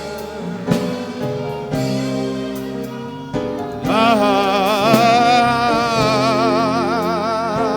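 Gospel worship music: sustained keyboard chords. About four seconds in, a voice comes in and holds one long, wordless note with a wide vibrato over them.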